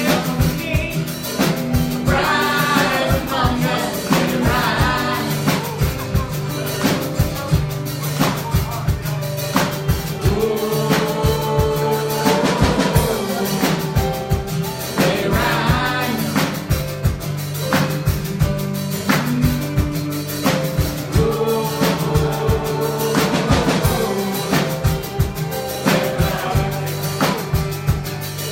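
Live worship music: a singer over a band with a drum kit keeping a steady beat, the vocal coming and going in phrases.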